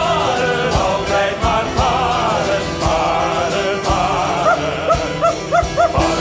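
Male voices singing a stage song over a small band of drum kit, violins and guitar, with a steady beat. Near the end the melody breaks into a run of short, upward-swooping sung notes.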